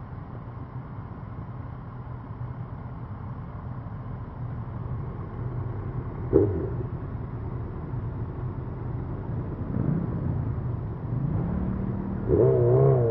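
Motorcycle engines rumbling steadily at low speed in a group ride. There is a brief loud blip about six seconds in. Near the end the revs rise in short glides, with a louder wavering engine note as bikes pull on.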